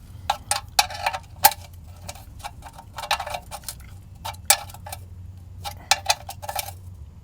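Ratchet wrench clicking in short, irregular runs of sharp metallic ticks while tightening the oil drain plug.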